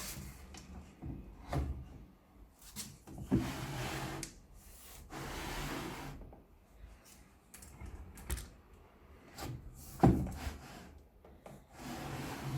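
Wooden parts being handled: several sharp knocks of wood on wood, the loudest about ten seconds in, and two longer sliding, rubbing sounds a few seconds in.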